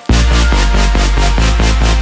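Electronic dance music with a heavy, steady bass line and a fast, even beat; it restarts abruptly after a short dropout.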